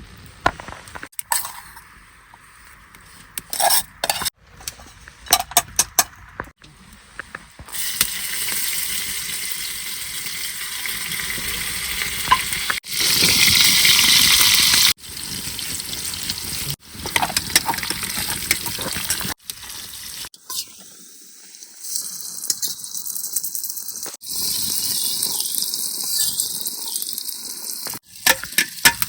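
Sizzling with stirring and scraping sounds and sharp clicks, in several segments that change abruptly at hard edits.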